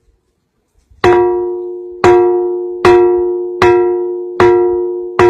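A ringing rock, struck with a stone six times at a steady pace, about one blow every 0.8 s, starting about a second in. Each blow rings out like a temple bell in several steady tones and fades slowly.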